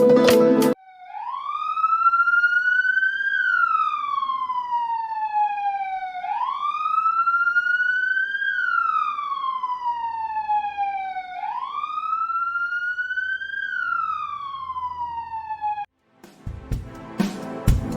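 A wailing siren, its pitch rising slowly for about two and a half seconds, then falling for about three, three times over. It starts just under a second in and cuts off suddenly about two seconds before the end, with music on either side.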